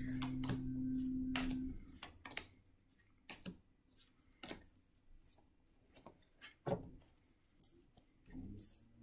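Playing cards being dealt one at a time onto a table, a soft click with each card laid down, at an uneven pace of about one a second.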